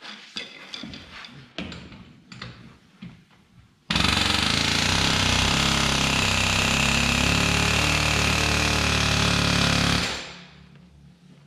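A few light metal clanks, then a pneumatic air hammer runs steadily for about six seconds against the front-axle steering knuckle of a John Deere 6400 tractor and stops abruptly. It is hammering at a stuck part to knock it loose.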